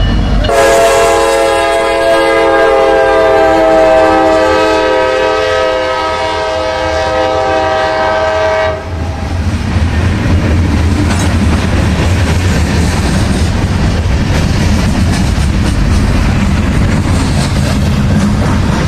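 Norfolk Southern freight train passing. The locomotive horn sounds one long chord of several notes for about eight seconds and cuts off sharply. The train then rolls by with a steady rumble and wheel clatter on the rails.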